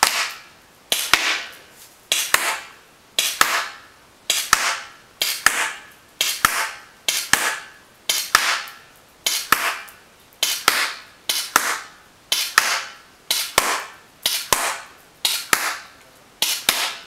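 KWC Desert Eagle CO2 blowback airsoft pistol firing semi-automatic at a steady pace, about one shot a second, each shot a sharp crack that trails off in a short hiss.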